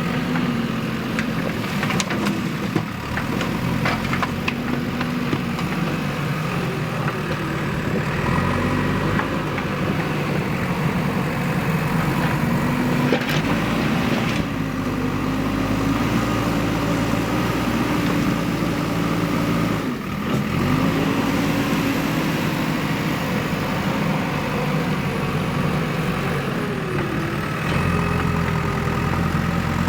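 Diesel engine of a JCB 3DX backhoe loader running under working load, its revs rising and falling in repeated swells as the hydraulics work, with a few light knocks.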